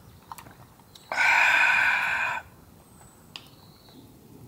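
A loud, breathy, drawn-out exhale of satisfaction after a gulp of a cold drink, lasting about a second and a half, with a few faint clicks around it.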